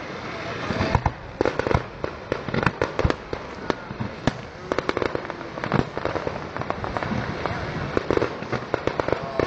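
Fireworks going off: many sharp pops and crackles in quick, irregular succession.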